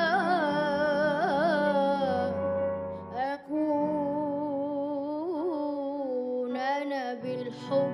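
A solo singer sings an Arabic-style melody: long held notes with vibrato and small ornamental turns, over soft steady accompaniment. The first phrase ends about two seconds in, and a new phrase starts after a brief break at about three and a half seconds.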